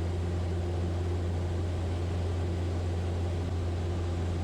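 Piper Cherokee's piston engine and propeller heard from inside the cabin, a steady low drone in flight during the climb to cruise altitude.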